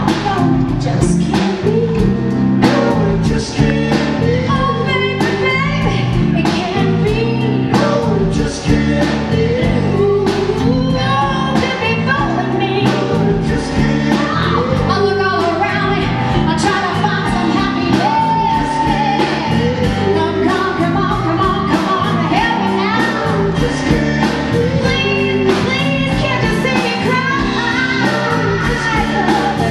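Live blues band playing, with a woman singing lead over electric guitar, bass, keyboard and drums, the drums hitting a steady beat.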